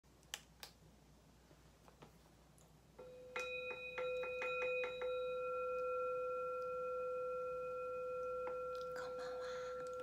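A few light taps, then about three seconds in a steady ringing tone with bell-like overtones starts among a quick run of clicks and holds on without dying away.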